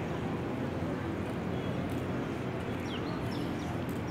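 Steady outdoor background hubbub with a few short, high, falling chirps about three seconds in.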